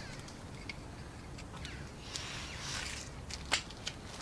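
Quiet room tone with faint rustling and a soft click about three and a half seconds in.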